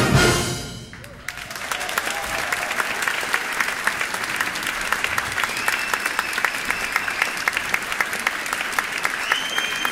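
A large ensemble's final chord rings out and dies away within the first second. Then an audience breaks into steady applause.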